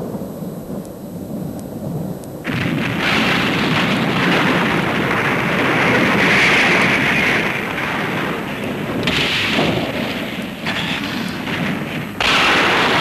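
Rockslide sound effect: a low rumble, then from about two and a half seconds in a loud, continuous rumbling crash of falling rocks and debris that shifts abruptly a few times near the end.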